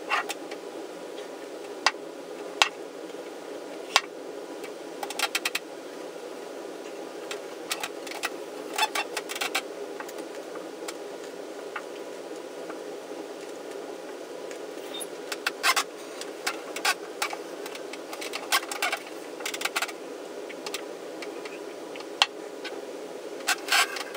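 A person moving and handling things at a wooden table: scattered small clicks and taps, some in quick clusters, over a steady hum.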